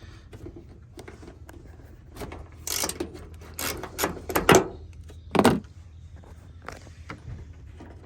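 A 12 mm wrench working a body bolt loose: a handful of sharp metallic clicks, clinks and scrapes, bunched together in the middle with the loudest near the end of the bunch.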